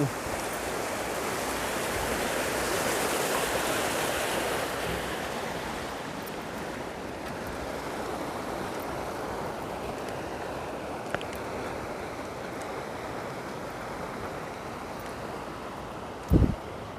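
Steady rush of waterfall and stream water, swelling a little between about two and five seconds in, with one brief low thump near the end.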